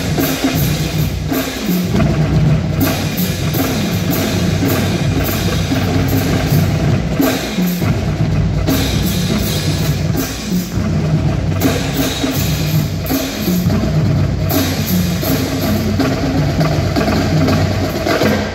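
Marching drumline playing a groove-based cadence: snare drums, tenor drums, tuned bass drums and cymbals in a dense, continuous rhythm.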